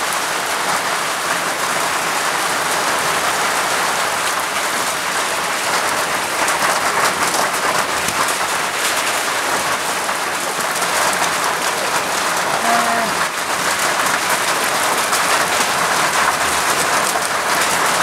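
Steady rain falling, an even, dense hiss of drops that holds throughout.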